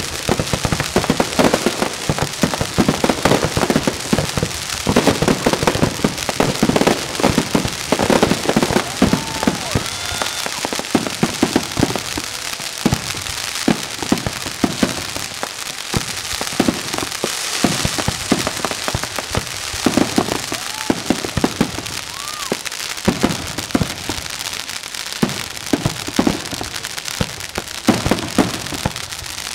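Fireworks display going off in rapid succession: a dense run of bangs and crackling, with a few short whistles rising and falling among them.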